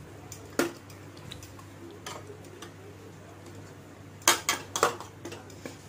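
Metal utensils clinking against a stainless steel cooking pot as a ladle stirs and a pot gripper steadies it: one clink about half a second in, then a quick run of four or five sharp clinks near the end.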